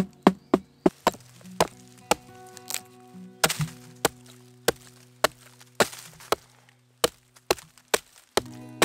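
Repeated chopping blows into solid, resinous wood, irregular at about two a second, as fatwood splinters are cut out for tinder.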